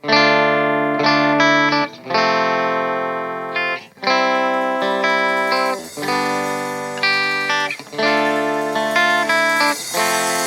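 Electric guitar playing sustained, ringing chords, a new chord struck about every one to two seconds, as the instrumental intro of a song with no drums yet.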